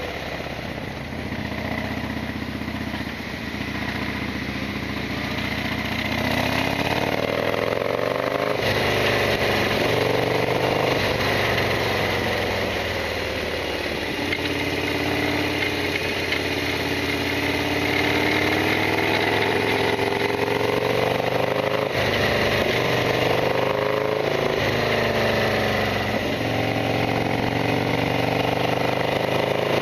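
Harley-Davidson Sportster XL1200R's air-cooled V-twin engine running while riding, the revs climbing and falling away several times as the gears change.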